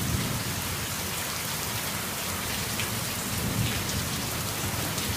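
Steady heavy rain pouring down in a storm, an even hiss of rain hitting the ground and roof.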